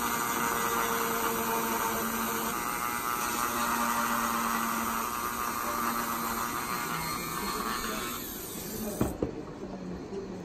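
Handheld electric rotary tool running steadily, its bit grinding into a dried sawfish rostrum to cut out a rostral tooth. It stops about eight seconds in, followed by a couple of sharp knocks.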